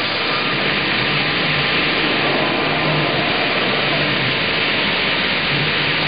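StrojCAD D9 automated circular sawmill running, its two circular saw blades cutting through a log: a steady, dense machine noise.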